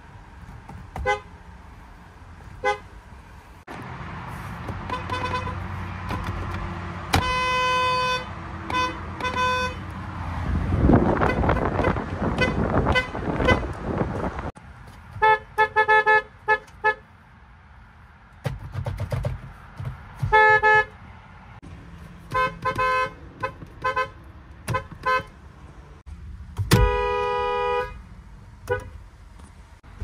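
Car horns of several different cars, a Ford, a BMW and a Toyota among them, each sounded in a few short toots and now and then a longer blast, with abrupt cuts from one car to the next. There is a stretch of rumbling noise without horn near the middle.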